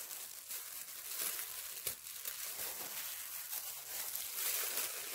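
Thin disposable plastic gloves crinkling and young butterbur leaves rustling as the stem ends are pinched off in a plastic colander, with a small click about two seconds in.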